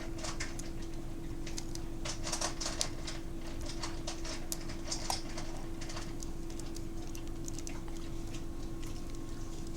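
Small parts of an opened compact digital camera being worked loose by hand: irregular light clicks and scratches of plastic and metal pieces. A steady low hum runs underneath.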